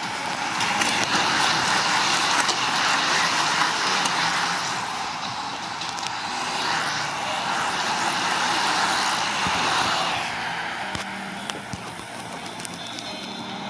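A bunch of racing bicycles passes close by on tarmac: an even rush of tyre and wind noise. It builds in the first second, holds for about ten seconds while the riders stream past, then dies away.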